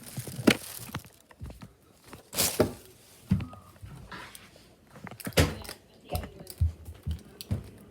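Scattered knocks, clicks and rustling of small household objects being handled and set down, with a few louder thuds.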